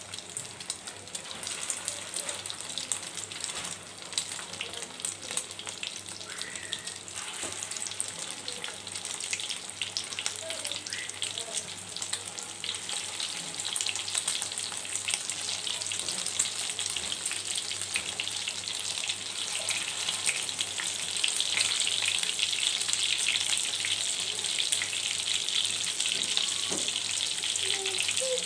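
Egg-dipped beef kabab patties sizzling and crackling as they shallow-fry in oil in a pan. The sizzle grows louder over the second half as more patties go into the oil.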